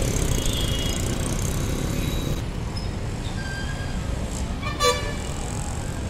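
Road traffic: a steady rumble of passing vehicles, with one short, loud horn beep near the end.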